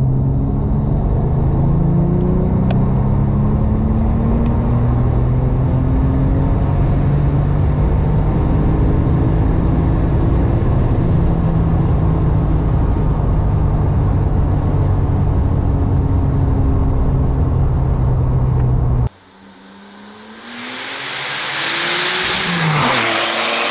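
Porsche 997 Turbo's twin-turbo flat-six, fitted with FAB intake and exhaust, heard inside the cabin accelerating hard at full throttle from about 75 to 200 km/h. About three-quarters through, it cuts suddenly to the car heard from the roadside, growing louder as it approaches and passing by with a falling pitch.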